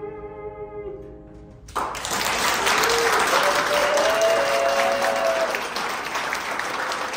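A tenor's final held note fades out, then an audience breaks into applause about two seconds in, with someone cheering over the clapping.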